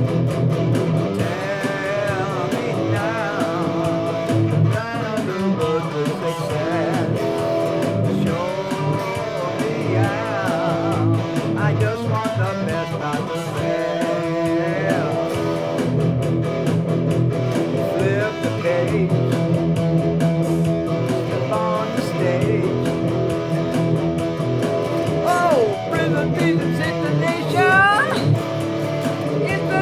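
Electric guitar instrumental break on a PRS SE Standard: lead lines with string bends and vibrato over chords, with a BeatBuddy drum machine beat underneath.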